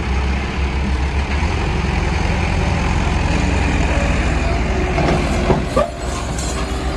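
Heavy diesel engines running steadily: a wheeled hydraulic excavator working close by, with tractors running in the background.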